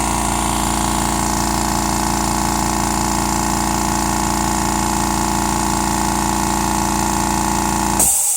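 California Air Tools 2010A 1 hp aluminum air compressor running steadily with an even pulsing, filling its 2-gallon tank. About eight seconds in the motor cuts off as the tank reaches full pressure, around 120 psi, and a sharp hiss of released air follows.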